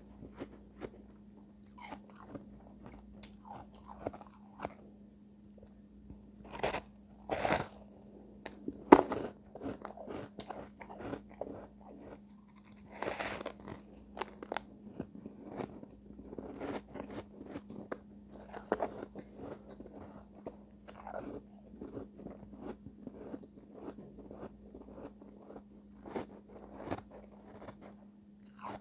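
Refrozen shave ice chunks being bitten and chewed close to the microphone: irregular crisp crunches, loudest about seven to nine seconds in.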